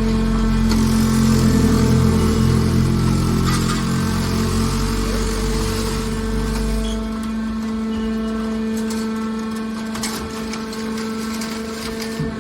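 Hydraulic metal baler running: a steady pump hum throughout, with a heavier low rumble for the first seven seconds or so that then eases off, and a few sharp metallic knocks.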